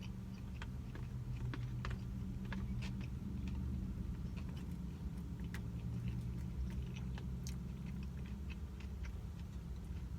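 A person chewing sushi: scattered small wet mouth clicks and smacks at an irregular pace, over a steady low hum.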